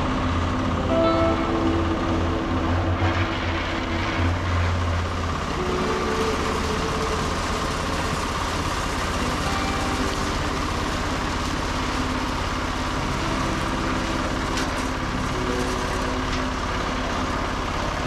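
Concrete mixer's engine running steadily, with a low hum that is strongest for the first five seconds or so and then eases a little.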